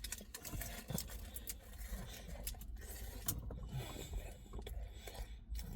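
Close-up eating sounds: a person biting and chewing a small kebab in a bun and handling it, a run of small irregular clicks and rustles over a low steady hum.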